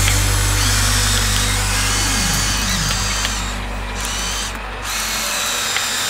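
Electric motors and gearing of a Huina remote-control toy excavator running as the arm digs and lifts a bucket of sand, the pitch shifting as the motors change speed.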